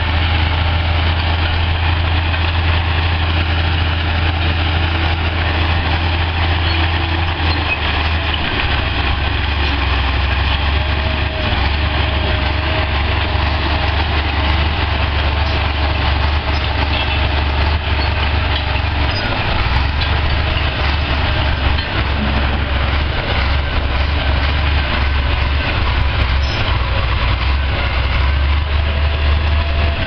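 Heavy diesel engines of a tracked excavator fitted with a pile-driving head and a crawler bulldozer running steadily, a deep drone that shifts slightly about eight seconds in.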